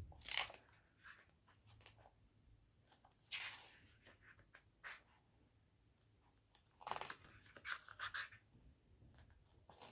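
Faint paper rustling as the pages of a glossy album photobook are turned by hand, in three soft bursts: about half a second in, around three and a half seconds in, and a longer cluster about seven seconds in.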